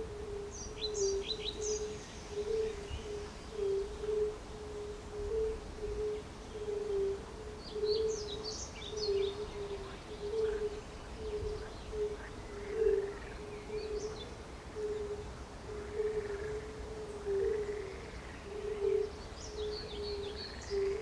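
A chorus of fire-bellied toads (Bombina) calling from a pond: short, low, musical notes repeated a little more than once a second by several toads at slightly different pitches. Songbirds sing in short high phrases now and then over it.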